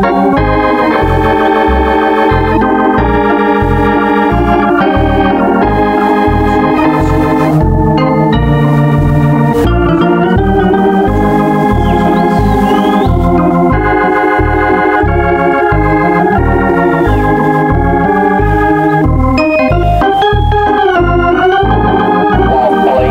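Organ music with a Hammond-type sound: sustained chords that change every second or so over a bass beat about twice a second.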